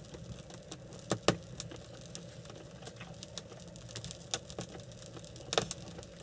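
Scattered light clicks and knocks of dishes, jars and cans being handled on a table, a few sharper ones about a second in and near the end, over a low steady hum.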